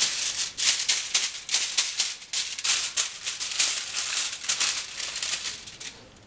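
Aluminium foil crinkling and rustling in quick irregular bursts as hands press it and a silicone brush spreads melted butter over it, dying away near the end.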